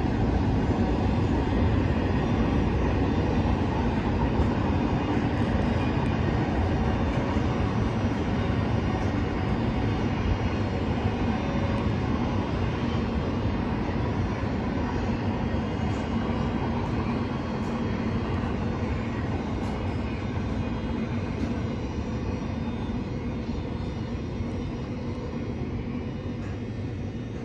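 Distant Norfolk Southern intermodal freight train passing across the water: a steady low rumble that slowly fades as the train moves off.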